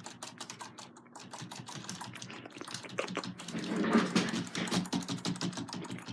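Rapid, continuous clicking of computer keyboard keys being pressed over and over, louder and denser for a couple of seconds near the middle.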